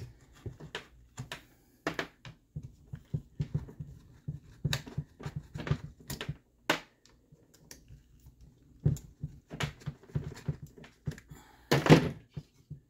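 Irregular small clicks and light knocks of a screwdriver and loose parts being handled while the main screws holding an RC monster truck's chassis to its side plates are taken out, with one louder knock near the end.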